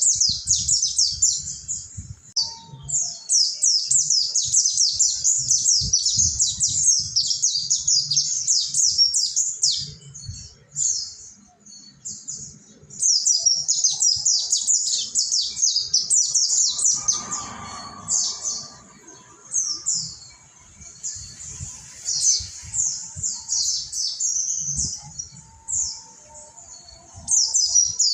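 Several mountain white-eyes singing together: a dense, fast, high-pitched twittering song with brief pauses, over a faint low rumble.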